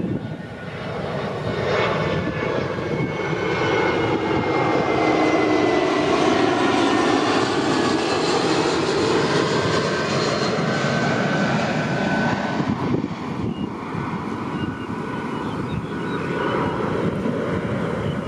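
Engine drone of an airplane passing overhead: it swells a couple of seconds in, holds, and eases off in the last few seconds, with tones that slide slowly in pitch.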